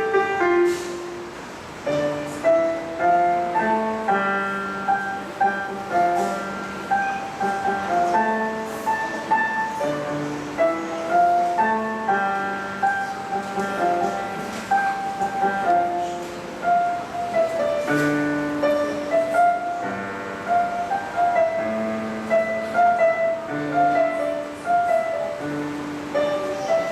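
Piano played solo: a slow melody over low bass notes, each note struck and left to fade.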